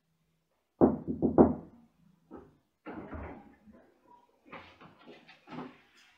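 Three quick knocks on a wooden bedroom door, then fainter clicks and bumps as the door is opened.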